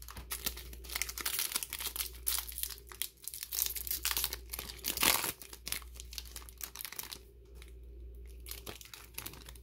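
Foil wrapper of a Flesh and Blood trading-card booster pack being torn open and crinkled by hand, a dense crackling that is loudest about five seconds in. After about seven seconds it dies down to light handling of the cards.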